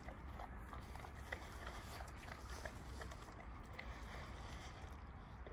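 A giant-breed dog chewing and smacking its lips as it eats a wet pile of raw vegetable kimchi: irregular wet clicks and crunches, several a second.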